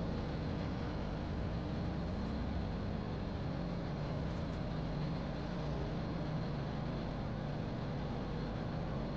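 Car moving slowly, heard from inside the cabin: a steady low engine hum and road noise.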